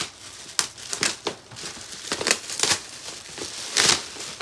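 Shiny red gift wrapping paper being torn open and crumpled by hand: a run of short crackling rustles, the loudest a little before the end.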